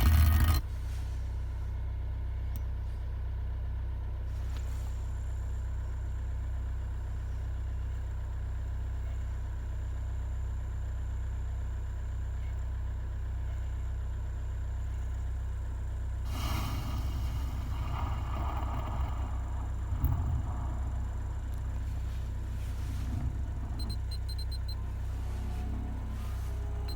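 Steady low rumble inside a car, with the multimedia system's sound dropped out. A few faint rustles come between about 16 and 20 seconds in, with a short knock near 20 seconds.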